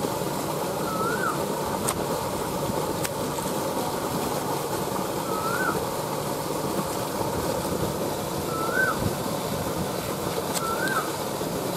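Steady outdoor background noise, with a bird repeating a short rising-and-falling call every few seconds. A few faint clicks come from a knife cutting through pineapple on a banana leaf.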